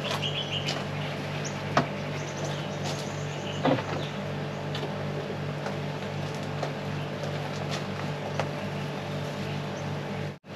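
Steady low machine hum underneath, with a few light knocks and rustles as a plant pot and plants are handled. A short high chirp comes right at the start, and the sound drops out for an instant near the end.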